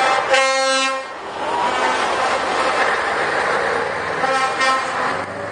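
A lorry's air horn sounds, a short blast about half a second in and another near the end. Between the blasts is the engine and tyre noise of an articulated lorry passing close by.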